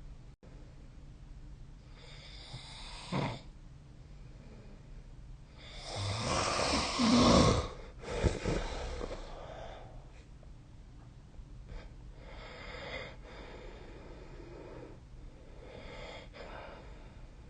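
A sleeping person snoring: a series of snores a few seconds apart, the loudest about six to eight seconds in, the later ones fainter.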